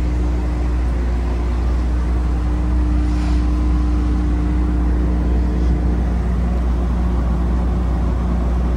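A large engine running steadily at one constant speed, with a low, even pitch throughout.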